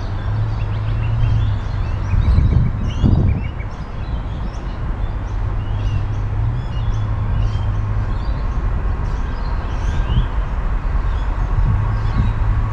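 Steady low drone of The Ghan's diesel locomotives approaching but not yet passing, with birds chirping over it throughout. A faint steady higher tone comes in near the end.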